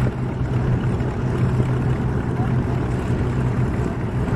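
Westland Lysander's single radial engine running at low power as the aircraft taxis, a steady low drone with propeller noise.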